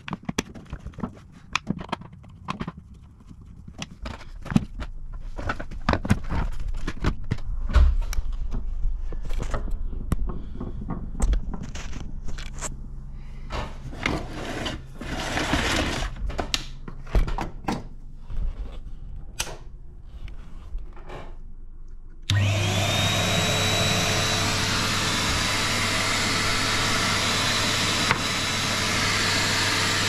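Clicks and knocks of a Henry vacuum cleaner being handled and screwed back together. About 22 seconds in, its motor switches on with a sudden start and runs steadily with a whooshing rush and a steady hum: the repaired on/off switch, its dirty contact cleaned, now starts the motor again.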